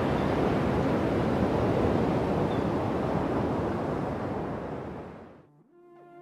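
Steady rushing roar of ocean surf, fading out about five seconds in, when music with soft horn-like notes begins.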